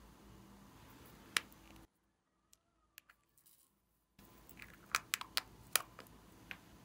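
Sharp plastic clicks and taps of a small screw-top glitter jar being handled, opened and tapped over a tray: one click about a second in, a near-silent gap in the middle, then a quick cluster of clicks in the second half.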